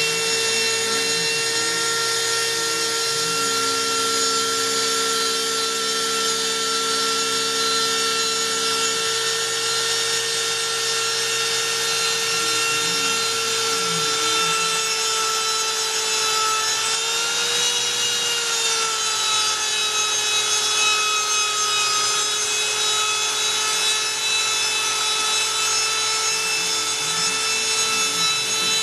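Homemade CNC router cutting carbon fiber sheet: the spindle runs with a steady whine, its pitch bending up briefly about two-thirds of the way through as the load changes. Fainter lower tones glide up and down three times as the machine's axes speed up and slow down.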